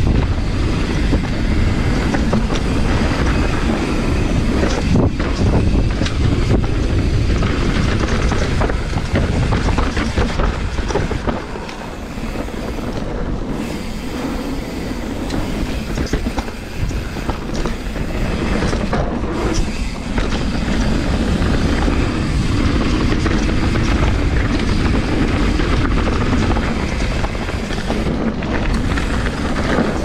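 Mountain bike being ridden down a dirt trail: a steady rumble of tyres over rough ground with the bike's constant rattling and clattering over bumps. It eases briefly about twelve seconds in.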